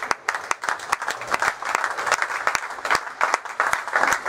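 Spectators applauding: many quick, irregular hand claps.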